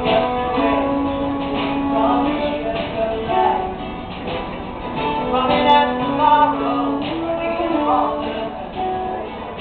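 A live band playing, with guitar accompaniment under a melody of long held notes that step up and down in pitch.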